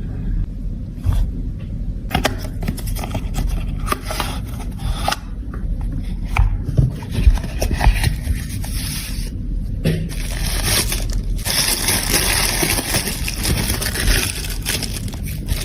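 Close-up handling noises of broken makeup being repaired: a series of sharp clicks and short scrapes, then a longer stretch of continuous scraping and rubbing from about ten seconds in.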